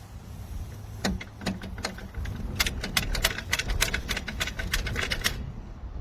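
Steady low rumble of a moving vehicle, with a quick run of sharp clicks and rattles from about a second in, several a second, from the loaded hitch-mounted bike carrier shaking on the road.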